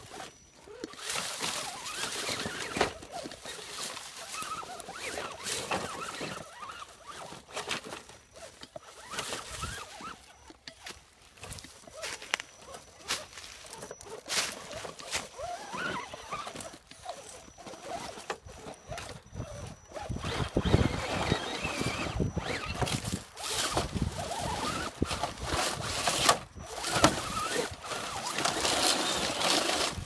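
Axial Deadbolt AX10 RC rock crawler's electric motor and gears whining in uneven bursts as it crawls over rocks, with dry leaves rustling and crunching under its tyres.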